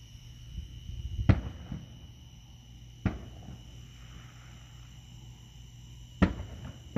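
Distant aerial firework shells bursting: three sharp booms, about a second in (the loudest), about three seconds in, and near the end, over a steady chorus of night insects.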